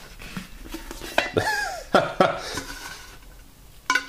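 A few sharp clinks and knocks on a stainless steel pot as a hand reaches in and picks up the shrunken marshmallows, with a short metallic ring near the end.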